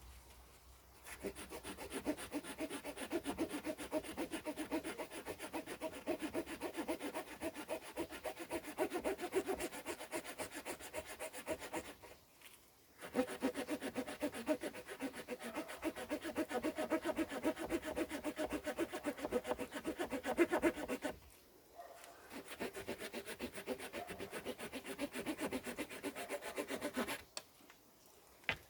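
Small folding wood-saw blade of a Victorinox Farmer X Alox pocket knife sawing through a fresh, mid-hard branch about 4 cm thick in quick, steady back-and-forth strokes. The sawing stops briefly about 12 seconds in and again about 21 seconds in, and stops near the end.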